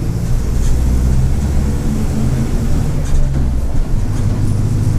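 Mercedes-Benz OF-1722M city bus's turbodiesel engine and drivetrain running steadily as the bus drives, its low note shifting in pitch around the middle. This bus is known for a whistling turbo and a growling differential.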